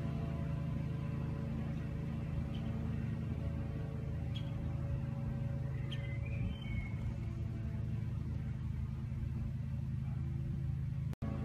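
Steady low ambient music drone of sustained held tones, with a few faint short chirps over it and a brief cut-out near the end.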